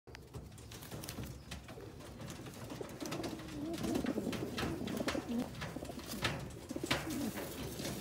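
Indian Fantail pigeon cock cooing, low bending coos repeated in short phrases from about three seconds in, with scattered sharp clicks.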